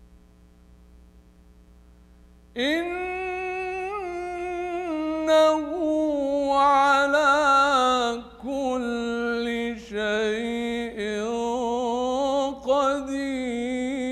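A man reciting the Qur'an solo and unaccompanied in melodic tajweed style. After a quiet start with only a low steady hum, his voice comes in about two and a half seconds in with a long, drawn-out, ornamented phrase, broken only by short pauses for breath.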